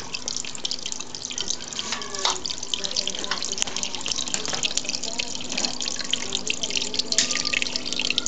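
Water from a small tabletop waterfall spout pouring and splashing into a turtle tank's basin: a steady trickle full of small drips and splashes. A steady low hum sits underneath.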